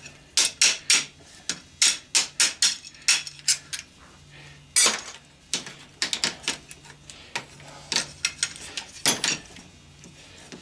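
Sharp, irregular hammer taps and knocks on metal parts of a washing machine being stripped for scrap, coming in quick clusters with one heavier knock about five seconds in.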